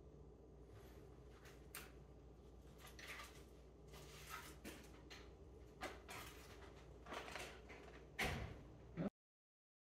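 Faint scattered clicks, knocks and rustles of things being handled in a kitchen, over a low steady hum, with a louder clatter about eight seconds in; the sound cuts off abruptly about nine seconds in.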